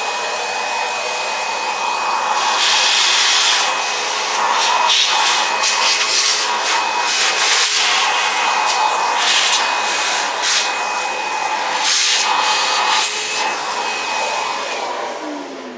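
Vacuum cleaner running and sucking dust out of an old upright vacuum's fan and motor housing, with uneven bursts of scraping and rattling as the nozzle works over the parts. It is switched off near the end and its motor winds down with a falling whine.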